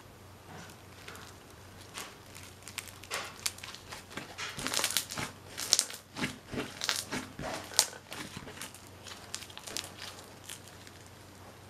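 Hands squeezing and stretching a thick, crunchy slime with small beads in it, giving a run of crackles and clicks that is busiest in the middle few seconds.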